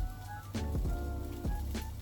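Background music with held notes, a heavy bass and a recurring beat.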